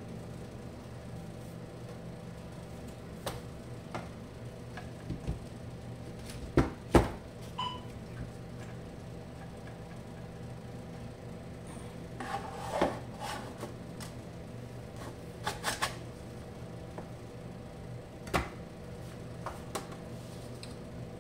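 Irregular light clicks and knocks of small metal and plastic parts being handled, as a tourniquet machine's valve block and wire connectors are worked on and refitted; the loudest is a pair of knocks about seven seconds in. A steady low hum runs underneath.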